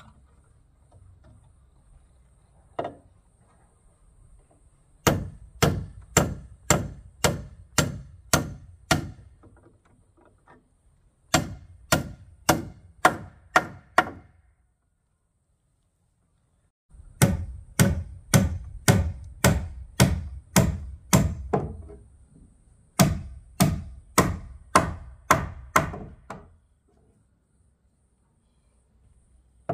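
Repeated blows of a tool on wood, about two a second, in four runs of six to ten strikes with short pauses between, and a single knock shortly before the first run.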